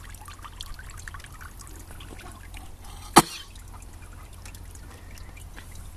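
Water trickling and dripping from a horse's soaked muzzle back into a water trough, with small splashes as she works her mouth at the surface. A single sharp click about three seconds in.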